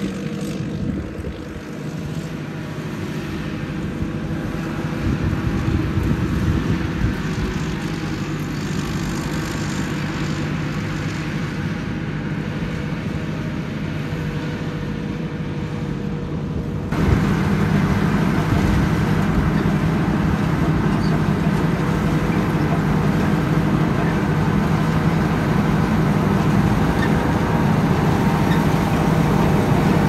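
Rice combine harvester's engine running steadily. A little past halfway it abruptly becomes louder and fuller.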